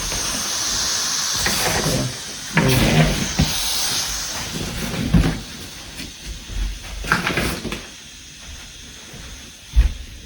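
Air hissing in through the open valve of a self-inflating sleeping pad as it sucks in air, loudest for the first couple of seconds and then fading. Scattered rustles and knocks from the pad being handled.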